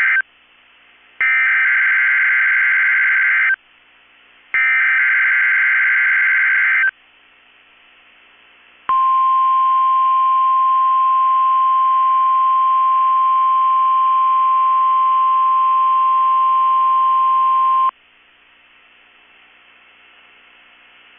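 NOAA Weather Radio Emergency Alert System test signal. First come the harsh, buzzing SAME header data bursts: the end of one burst and then two more, each about two seconds long with a second's gap between them, finishing about 7 seconds in. After a two-second pause, the steady 1050 Hz weather radio warning alarm tone sounds for about nine seconds and then cuts off.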